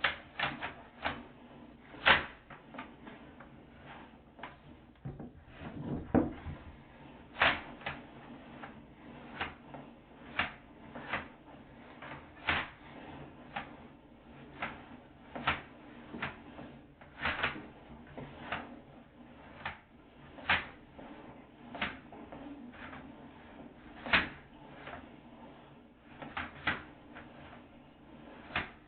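Sewer inspection camera being pushed through a repaired drain line: irregular sharp knocks and clacks, roughly one every second or two, as the camera head and push rod bump along the pipe.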